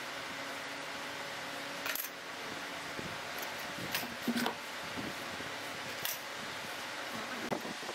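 Light metallic clinks and knocks, a few spread over several seconds, as a steel square and steel rulers are handled and set down on wooden workpieces on a workbench. A steady hum runs under the first couple of seconds.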